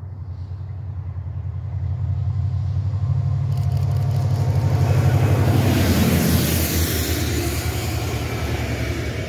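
Diesel locomotive hauling a train of wagons approaching and passing close by: a low, pulsing engine note grows louder, then wheel and rail noise rises sharply about three and a half seconds in and peaks as the locomotive goes past.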